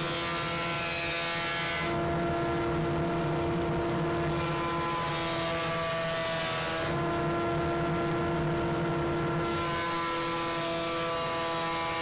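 20-inch thickness planer running with a steady hum. The louder hiss of a wood slab being cut by the cutterhead comes three times, each pass lasting two to three seconds: at the start, about four seconds in, and from about nine and a half seconds on.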